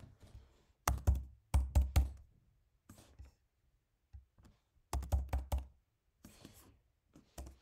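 Computer keyboard typing: sharp separate keystrokes in short irregular bursts of two to four, with brief pauses between them.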